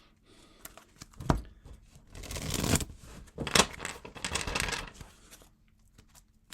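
Tarot cards being handled and laid out: a light tap, then several papery swishes of cards sliding and being turned over.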